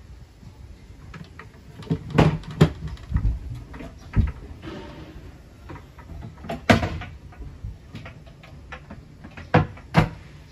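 Built-in laminated wooden cabinet doors on concealed hinges being opened and shut, a series of sharp knocks and clacks: a cluster about two to four seconds in, one loud clack near seven seconds, and two more just before the end.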